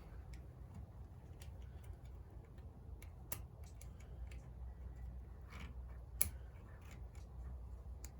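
Faint, scattered light clicks of small engine roller bearings and their cage being picked out and handled, over a low steady hum; the two sharpest clicks come about three and six seconds in.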